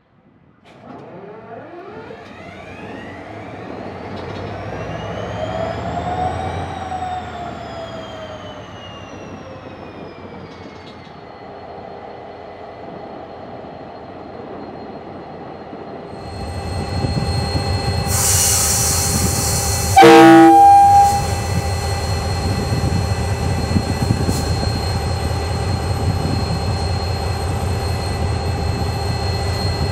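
A KiwiRail DFB class diesel-electric locomotive idling at a platform revs up and back down, with a whine that rises for several seconds and then falls away. Then a louder, steady diesel engine sound, a brief hiss, and one short, loud horn blast about twenty seconds in.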